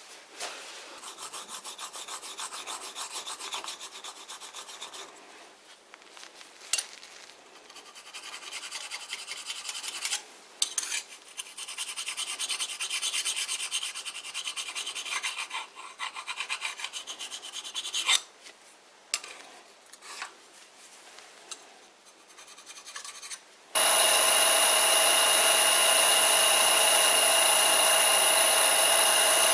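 Irregular scraping strokes of the lathe's tool bit being touched up by hand, because it was not cutting cleanly. About six seconds before the end, the lathe comes in suddenly, much louder: a steady running noise with a high whine as the vintage Karger lathe, driven by a frequency drive, turns the work and takes a cut.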